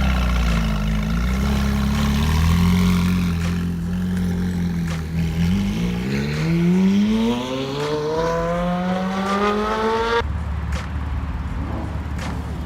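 Supercar engine running, then accelerating with a steadily rising pitch for several seconds before the sound cuts off abruptly about ten seconds in.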